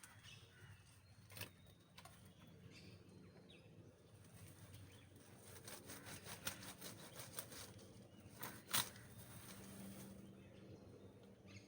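Faint rustling of grass and brush being cleared by hand, with a run of quick sharp snaps and clicks in the middle and one louder snap near the end.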